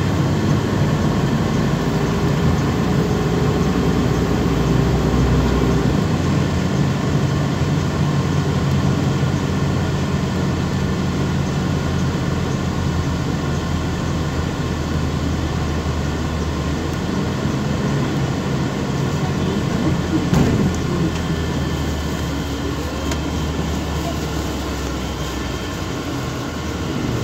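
Inside a moving MAZ 206 city bus: the engine and road noise run steadily, with a brief rise in engine pitch about three-quarters of the way through.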